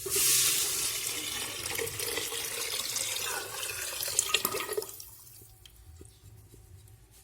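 Tamarind water poured from a vessel into a hot kadai of fried spice paste: a rush of pouring and splashing liquid that starts suddenly, loudest at first. A couple of clinks come near the end, and the pour stops about five seconds in.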